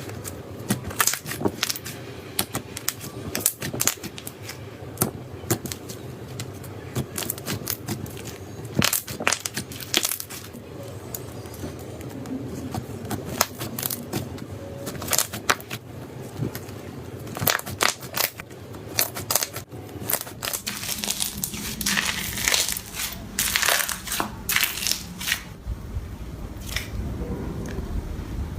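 Slime being squeezed and pressed by hand, giving a run of sharp crackling pops and clicks. About two-thirds of the way through, the sound turns to denser, noisier crackling.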